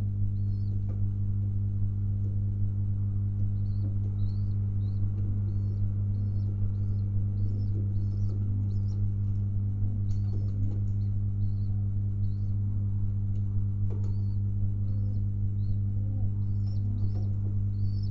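Steady low electrical hum, the loudest sound throughout, with faint short high chirps repeating about twice a second in runs and a few soft low coos from domestic pigeons in the loft.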